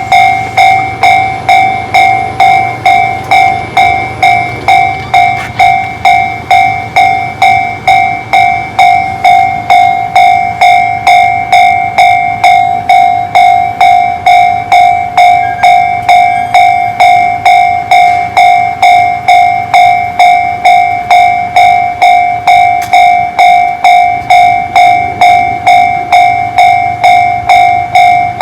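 Japanese railway level crossing's electronic warning bell (Tobu 'sound C' type) ringing steadily, about two strikes a second. This signals that a train is approaching or passing and the crossing is closed.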